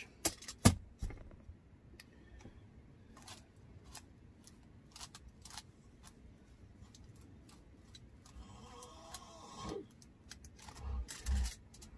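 Quiet handling sounds from a foam sponge brush dabbing sealer onto an air-dry clay spoon rest: faint scattered ticks and taps, with a couple of sharp clicks about half a second in and soft low thumps near the end.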